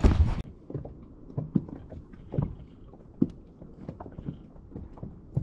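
A short burst of hiss at the start, then irregular light knocks and thumps on a fishing boat, the sound of gear and feet moving on the deck while a fish is landed.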